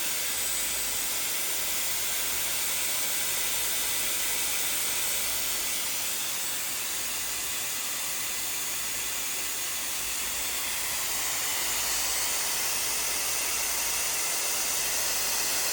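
Dyson Airwrap i.d. multi-styler switched on and running, its motor blowing a steady rush of air with a faint thin whine, left on while its software update downloads.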